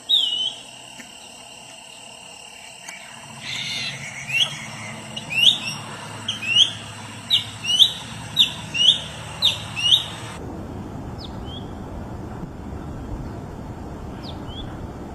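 Songbird calls: a run of about ten short, loud, upward-sweeping chirps, roughly two a second, over a steady background hiss. The backdrop changes abruptly twice, as at cuts between recordings, and after the run only a few faint chirps are left over a low rumble.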